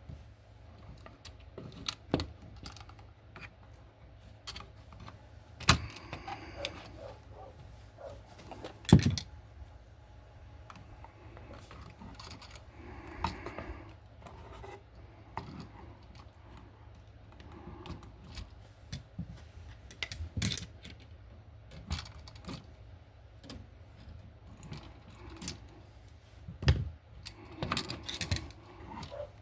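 Irregular clicks, taps and scrapes of hand tools working the black wire and the metal receptacle while the wire's insulation is stripped, with a few sharper knocks scattered through.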